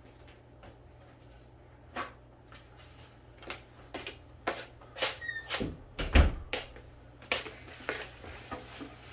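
Scattered clicks, taps and knocks of small laptop parts and a tool being handled during disassembly, with a heavier thump about six seconds in.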